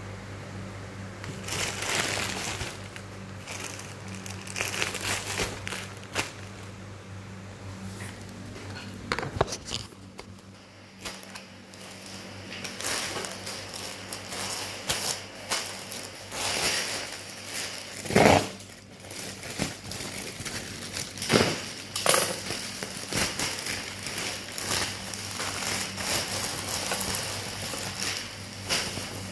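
Packaging crinkling and rustling as a parcel is unwrapped by hand, with scattered clicks and knocks. The sharpest knock comes about two-thirds of the way through, over a steady low hum.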